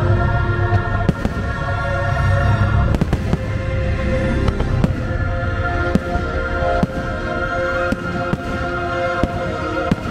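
Fireworks going off in a dozen or so sharp bangs at irregular intervals, over loud sustained orchestral show music.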